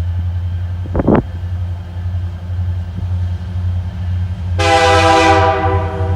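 Diesel locomotive rumbling steadily, with two sharp knocks about a second in. About four and a half seconds in, its multi-chime air horn sounds one long chord blast.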